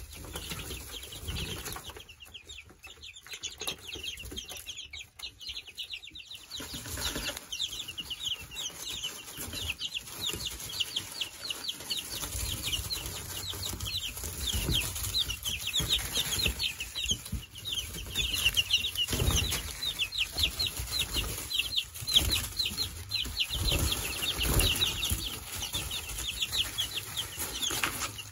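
A flock of young chicks peeping constantly, rapid high chirps that thicken into a steady chorus a few seconds in, with wings flapping and feet scratching in wood shavings.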